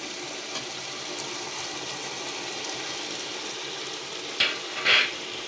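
Chicken pieces frying in oil in a pot, with a steady sizzle. Near the end come two brief, louder bursts of noise as a ground onion and spice paste is scraped in with a spatula.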